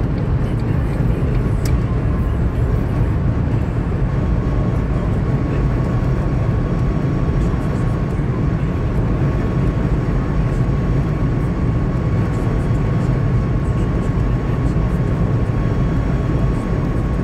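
Steady road and engine noise heard inside a car cruising on a motorway: a deep, even rumble of tyres and wind. A faint, thin steady tone comes in about five seconds in and holds.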